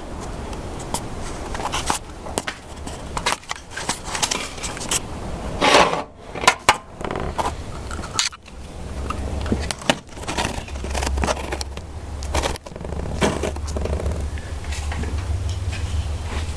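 Honda GX160 5.5 HP engine running and driving a homemade sawmill, a low drone under repeated clattering, knocking and scraping. The drone turns steadier and slightly higher about two-thirds of the way in.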